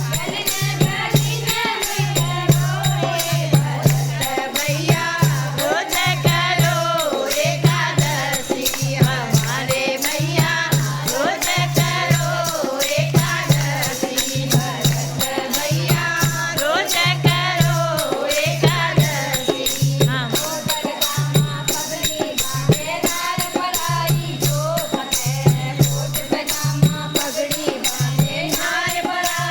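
A Hindi devotional bhajan sung to percussion, with a low beat about once a second and a fast rattle-like jingle above the voices.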